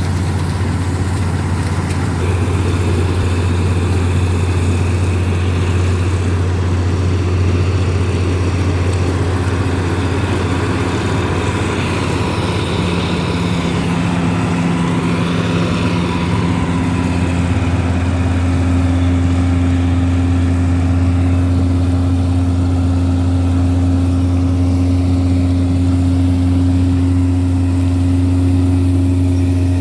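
Wheat combine harvester's diesel engine running steadily with a deep, even hum. A higher steady tone joins about a third of the way in and holds.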